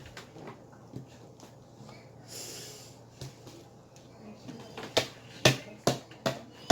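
Slime being worked in the hands: quiet handling at first, then sharp clicking pops about twice a second during the last couple of seconds.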